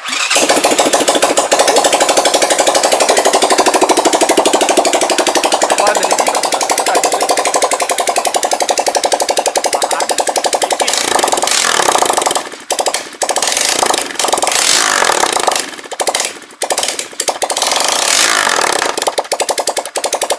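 BSE J1 supermoto's single-cylinder four-stroke engine running on its first start after a top-end rebuild, with a fast, steady firing beat. About eleven seconds in, the throttle is blipped again and again, and the revs rise and fall with short dips between.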